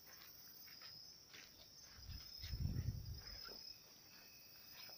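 Night insects chirring steadily in a high, even band, with a louder low, muffled rumble about two seconds in that lasts about a second and a half.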